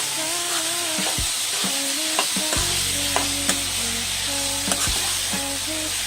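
Chicken pieces sizzling in hot oil in a pan as they are stirred, with the spoon knocking and scraping against the pan now and then.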